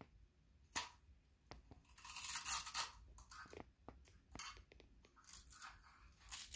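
Plastic packaging crinkling and rustling in short bouts as a wooden turkey box call is unwrapped and handled, with a few light clicks and knocks.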